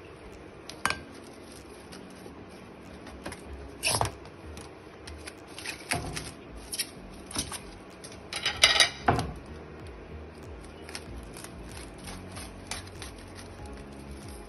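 Plastic cling film being pulled off its roll and stretched over a glass bowl: intermittent crinkling and rustling with scattered light taps, loudest about four seconds in and again in a cluster around nine seconds.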